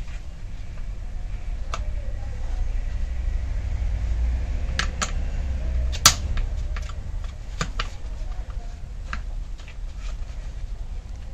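Scattered clicks and taps of a screwdriver and gloved hands on a gasoline chainsaw's plastic housing during disassembly, the loudest about six seconds in, over a steady low hum.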